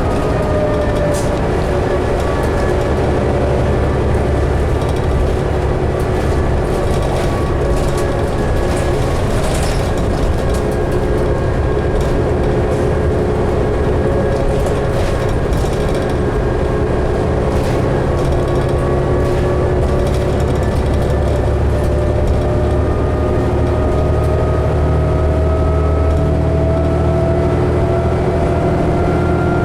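Inside a 2011 New Flyer D60LFR articulated diesel bus under way: a steady engine and drivetrain drone with a whine that sags a little mid-way and climbs again near the end, over light cabin rattles.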